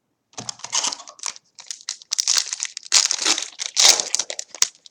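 Trading card pack wrapper being torn open and crinkled by hand: a dense run of irregular crackles and rustles, starting about a third of a second in.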